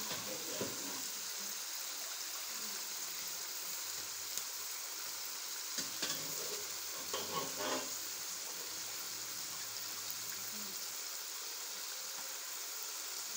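Spice masala frying in a pot with a steady sizzle as boiled potatoes and beef cook in it. A few light knocks and scrapes of a utensil against the pot come about six seconds in and again a second or two later.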